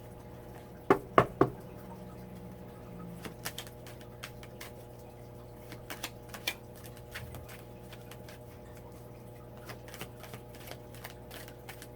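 Oracle cards being handled and shuffled: three sharp taps close together about a second in, then a run of faint light ticks and rustles of the cards.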